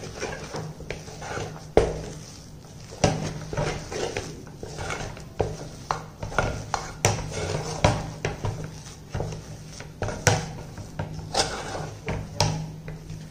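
A spoon scraping and knocking against a stainless steel pot in an uneven rhythm, roughly one to two strokes a second, as ragi flour is stirred into hot water to cook into a stiff dough.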